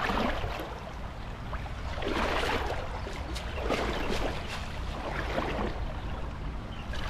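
Shallow river water splashing and sloshing in several irregular surges, the loudest about two and four seconds in, over a steady low rumble.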